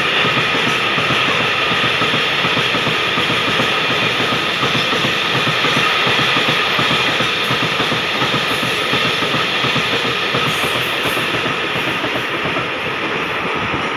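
Freight train of cement hopper wagons rolling past at speed: a loud, steady rumble and rattle of steel wheels on the rails, easing slightly near the end.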